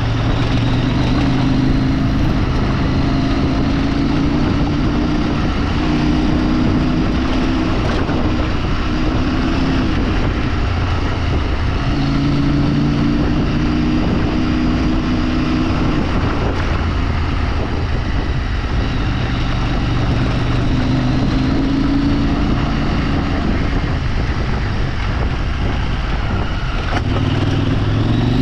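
A vehicle engine running while under way, its pitch rising and falling several times as it speeds up and eases off, with a clear climb near the end. Steady rushing road and wind noise runs underneath.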